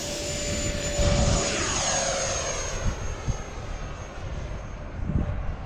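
Radio-controlled model airplane flying past, its motor giving a steady high whine with a lower tone that drops slightly in pitch as it goes by. Gusts of wind buffet the microphone about a second in and again near the end.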